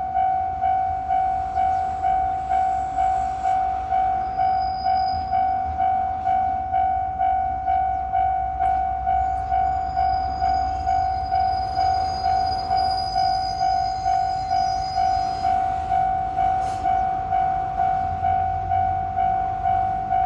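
Japanese railway level-crossing warning bell ringing steadily at about two dings a second, one clear repeated tone, over a low rumble.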